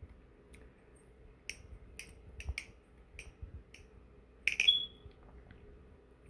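NRB Vortex trainer balisong being flipped: its handles and pivots give irregular sharp metallic clicks and clacks. The loudest clack comes about four and a half seconds in and rings briefly.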